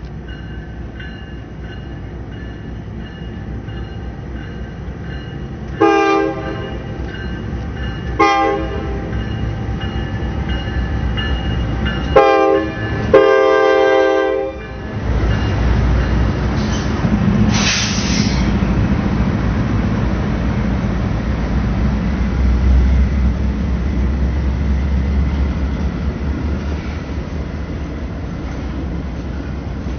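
Norfolk Southern diesel freight locomotive's air horn sounding four blasts, long, long, short, long, the grade-crossing signal, as the engines pass close by. After that comes the steady heavy rumble of RoadRailer trailers rolling past on the rails, with a brief high screech about halfway through.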